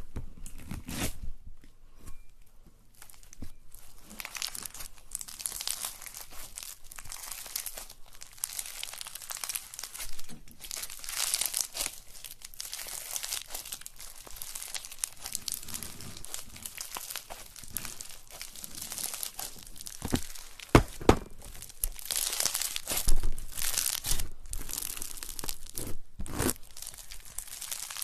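Slime being squished and stretched, making continuous crackling, crinkling sounds, with a few sharper, louder pops about two-thirds of the way in.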